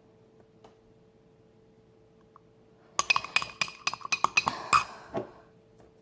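A utensil clinking rapidly against a hard mixing bowl as a dish-soap-and-salt slime is stirred. It starts about halfway through, after a quiet stretch with a faint hum, and lasts about two seconds.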